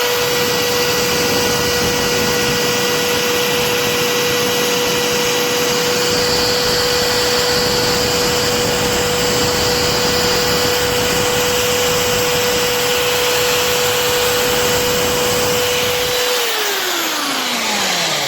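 Einhell TH-ID 1000 E corded impact drill running at a steady speed with a constant high whine. About 16 seconds in, the trigger is released and the motor winds down, its pitch falling.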